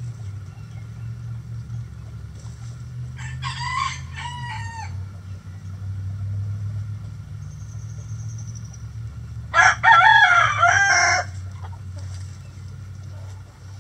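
A rooster crows twice: a fainter crow about three seconds in, then a loud, close crow near ten seconds in, each lasting about a second and a half. A steady low hum runs underneath.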